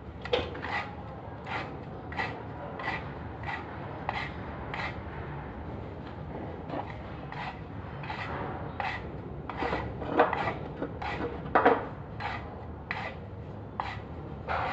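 Repeated short rasping, scraping strokes, roughly one every two-thirds of a second, coming closer together and louder about ten to twelve seconds in, over a faint steady low hum.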